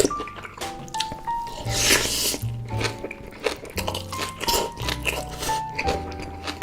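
Background music with a stepping melody and bass line, over close-miked chewing and crunching of big mouthfuls of bibimbap.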